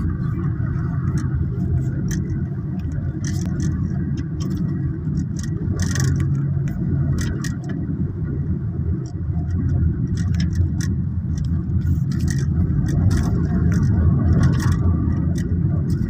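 Steady low rumble of a car driving, engine and road noise heard from inside the cabin, with scattered light clicks and rattles.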